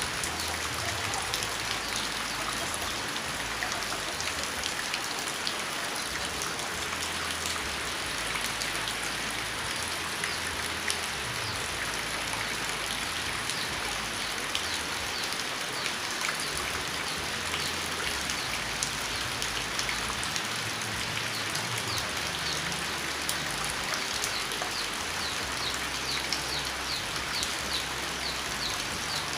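Steady rain falling, a dense patter of drops hitting surfaces with no let-up. Near the end a run of short, high, evenly repeated chirps sounds over it.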